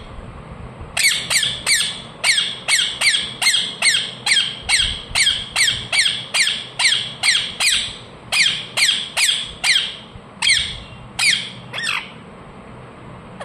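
Ringneck parrot giving a long run of short, harsh squawks, about two a second, that stops shortly before the end.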